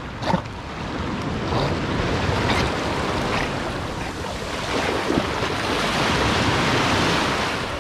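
Small waves washing onto a sandy beach, with water splashing in the shallows and wind rushing over the microphone. There is a brief knock near the start and another about five seconds in, and the wash of water grows louder near the end.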